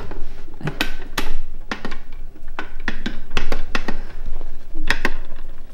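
Irregular plastic clicks and taps as a hand presses the buttons and switch of a Genius (Simon-style) electronic memory toy. The toy gives no tones or beeps of its own because it has no batteries.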